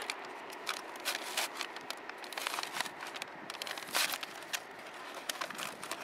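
Kraft-paper mailer being handled and opened, the paper crinkling and crackling in quick irregular bursts over a steady hiss of wind and surf.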